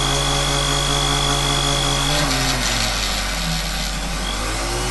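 Micromotor spinning the sintered diamond disc of a graver-sharpening device, running with a steady hum and a high whine. About two seconds in, the graver is pressed to the smooth superfinish edge of the disc: the motor's pitch dips slightly under the load and a light grinding hiss runs for a second or so.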